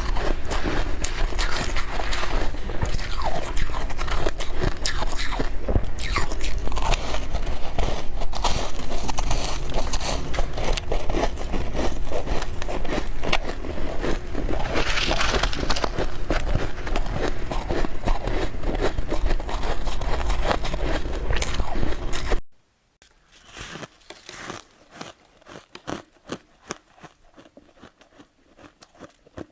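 Close-up crunching of powdery freezer-frost snow ice being bitten and chewed: a dense, continuous crackle of small crunches. About 22 seconds in it drops suddenly to much quieter, scattered crunches.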